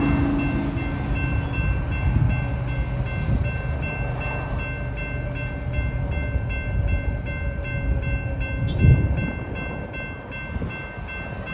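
Railroad crossing bell ringing steadily at about two strokes a second while the crossing gates lower, over the low rumble of an approaching CSX freight train. A train horn blast dies away about a second in, and a single loud thump comes about three-quarters of the way through.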